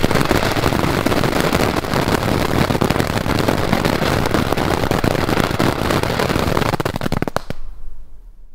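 Small youth-category silver-blossom fountain firework burning: a steady loud hiss of spraying sparks thick with crackles, dying away about seven and a half seconds in as the fountain burns out.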